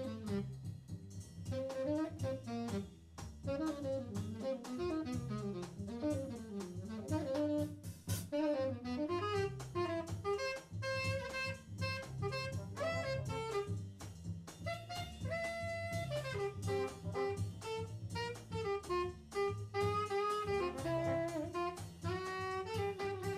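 Live small-group jazz: a tenor saxophone solos over double bass and drum kit. The saxophone plays quick runs of notes in the first half, then longer held notes, with steady cymbal strokes throughout.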